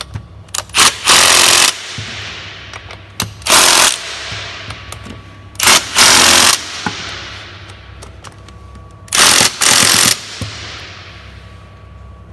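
Impact wrench hammering bolts home in four short bursts, some in two quick pulls, set to its lowest torque setting.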